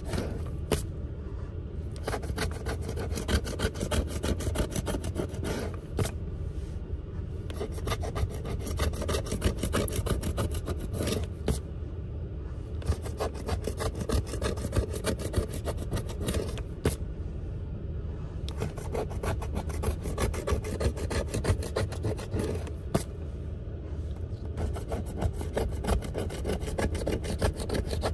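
A coin scratching the coating off a scratch-off lottery ticket: many quick back-and-forth strokes without a break.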